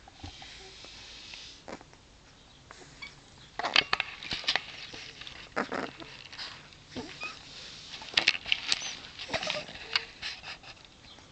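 A pile of sleeping Weimaraner puppies stirring: irregular rustling and scuffling against the blanket, with a few brief faint squeaks.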